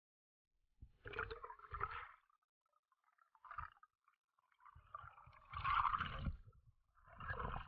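Underwater gurgling of a diver's exhaled air bubbles, in several short bursts with the loudest about two-thirds of the way through, muffled by the camera's waterproof housing.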